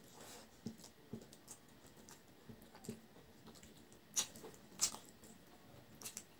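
Close-miked eating by hand: chewing and mouth sounds with scattered short wet clicks and smacks, the two loudest about four and five seconds in, along with fingers working rice on a plate.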